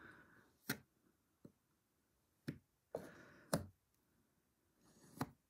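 Five faint, sharp clicks about a second apart, with soft scraping between: a small putty knife tapping and pressing putty against a dolls house window frame.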